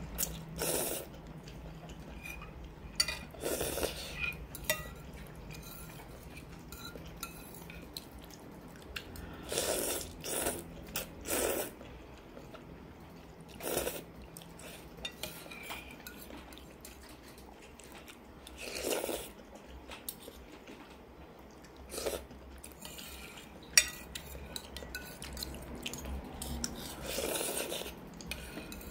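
Spicy instant noodles being slurped in short bursts, with a metal fork and spoon clinking and scraping against a ceramic bowl. One sharp clink about five seconds before the end is the loudest sound.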